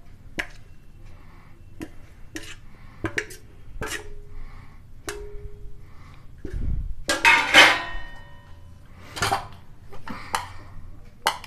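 Steel spoon clinking and scraping against a steel plate and a ceramic bowl as boiled amla (Indian gooseberry) segments are scraped from one into the other: a run of sharp clinks, with a louder scraping clatter about seven seconds in.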